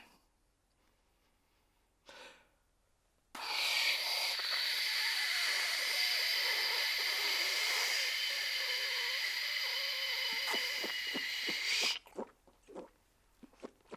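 A man's mouth-made impression of a washing machine: a loud, steady breathy hiss with a few held whistling tones, starting about three seconds in and cutting off suddenly after about eight seconds, followed by a run of short quick clicks and pops.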